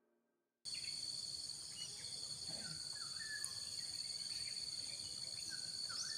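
Garden ambience: insects buzzing steadily on several high tones, with birds chirping now and then, starting about half a second in after a moment of silence.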